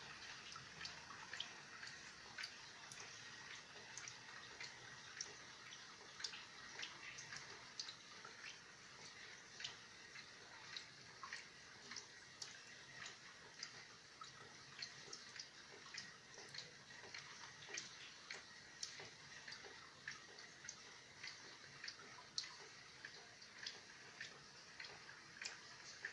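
Light rain falling: a faint, steady hiss with irregular drops ticking and dripping, a few each second.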